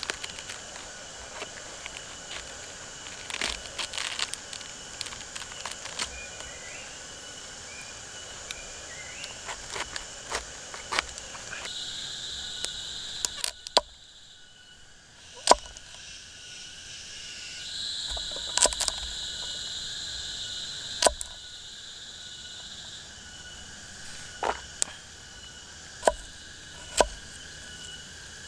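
Serrated knife cutting cabbage and chopping carrot and potato on a wooden log: scattered sharp taps as the blade strikes the wood. Behind them, steady chirping forest insects, with a high insect drone that starts and stops twice.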